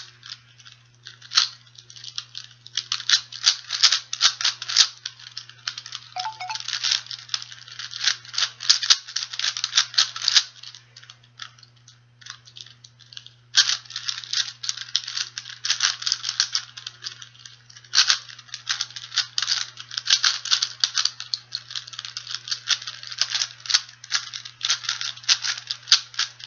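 Plastic 4x4x4 speed cube being turned quickly by hand, its layers clicking and clacking in rapid runs. The turning thins out about eleven seconds in and picks up again at full pace about thirteen and a half seconds in.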